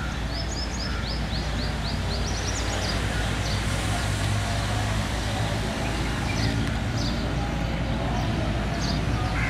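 Diesel locomotive engine running with a steady low hum as it hauls a passenger train towards the listener. Small birds chirp over it, with a quick run of chirps in the first few seconds and more near the end.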